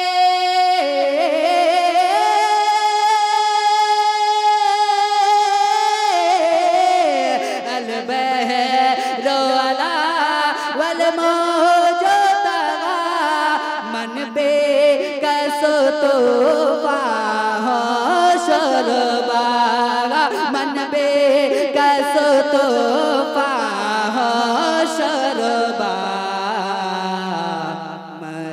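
A man singing a naat into a microphone, wordless and melismatic. He holds long steady notes for about the first six seconds, then sings winding, ornamented runs.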